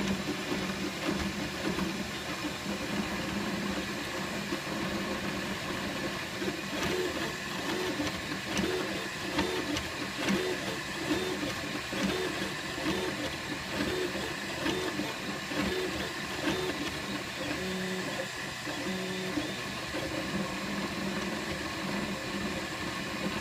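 Flashforge Dreamer 3D printer running as it lays down an 80-micron layer: the print head's motors give short repeated tones, starting and stopping with each move, over a steady hum and hiss.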